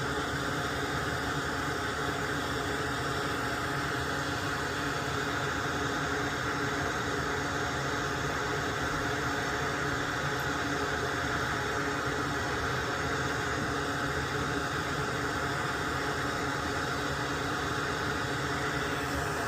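Small electric blower motor running steadily: an even whooshing hiss with a faint hum under it, unchanging throughout.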